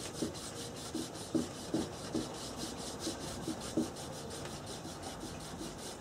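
A cloth rag rubbed quickly back and forth over a yew picture frame, a rhythmic swishing of several strokes a second, working sanding sealer into the wood; a few soft knocks come now and then.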